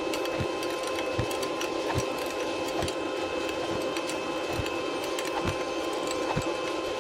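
TIG welder arc on aluminum engine cases: a steady electrical buzz with faint crackle, and soft low ticks a little under a second apart.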